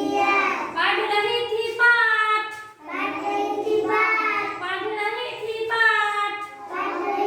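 A child singing a Hindi nursery rhyme in a high voice, unaccompanied, in phrases of about a second each with a short pause near the middle.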